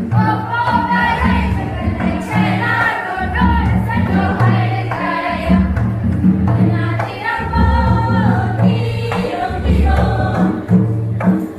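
Karam folk song: several voices singing together over a steady, repeating low drum beat.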